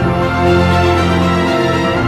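Background music: held chords of a theme-style soundtrack, changing about every second.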